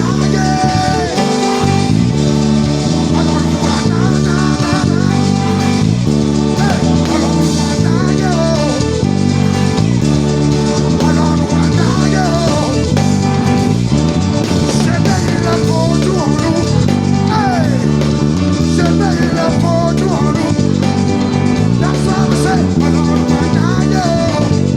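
Live gospel worship band playing an upbeat instrumental groove, with the electric bass guitar prominent under drums and electric guitar.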